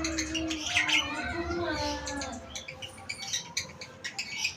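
Lovebird ngekek: a long, rapid, unbroken run of shrill chirps and clicks.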